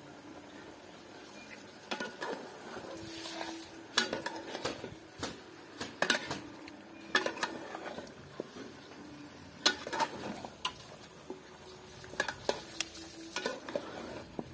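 A long-handled metal spoon stirring and scraping beef in a metal cooking pot, with sharp, irregular knocks against the pot starting about two seconds in. Under it is a faint sizzle of the meat frying down.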